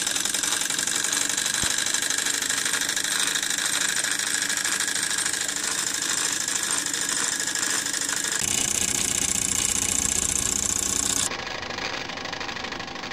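Wilesco model steam tractor's small single-cylinder steam engine running fast with a rapid, even mechanical clatter, belt-driving a 12-volt DC motor used as a generator. The sound drops somewhat in level near the end.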